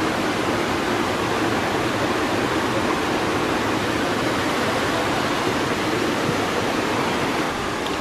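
Waterfall water rushing down over rocks: a steady, even rush with no breaks.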